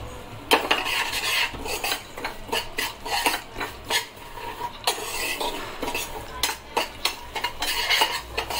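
Steel ladle scraping and clinking against a small black kadai as semolina is stirred and roasted in ghee for halwa. The strokes are quick and irregular, starting about half a second in.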